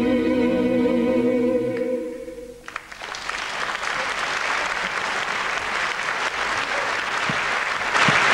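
The final held sung note of a male–female pop ballad duet, wavering with vibrato over the accompaniment, dies away about two and a half seconds in. Then an audience breaks into applause that swells near the end.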